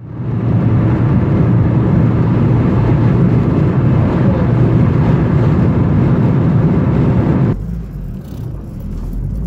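Car driving at motorway speed: loud, steady road and wind noise. About three-quarters of the way through it cuts suddenly to a quieter, lower rumble heard inside the car's cabin.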